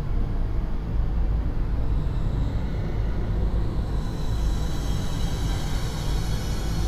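Time-stretched (Paulstretch) soundscape: a deep, steady rumbling drone with no clear pitch or rhythm, and a higher hiss coming up about four seconds in.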